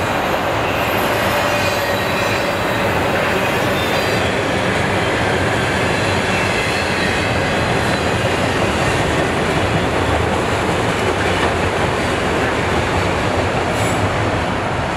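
Freight train's autorack cars rolling past, steel wheels running on the rails in a steady loud rumble, with a faint wheel squeal in the first few seconds. The noise eases slightly near the end as the last car goes by.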